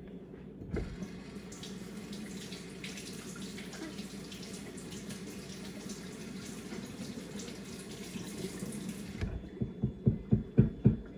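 Kitchen tap running into a sink for about eight seconds, then shut off; right after, a quick run of low, heavy thumps near the end.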